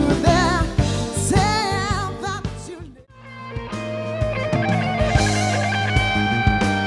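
Live band playing: drum kit, bass and electric guitar, with a lead line wavering in wide vibrato. About three seconds in the music drops out almost to silence and fades back up, as at an edit, continuing with long held notes over the drums and bass.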